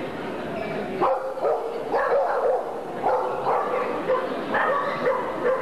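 A dog barking repeatedly, short barks coming every half second to a second from about a second in.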